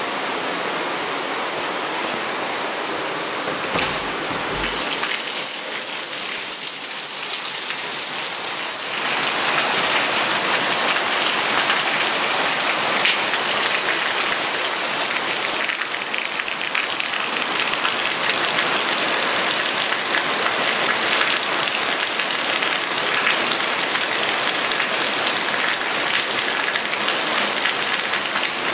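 Steady downpour of rain, an even hiss of water falling. About nine seconds in it becomes fuller and a little louder.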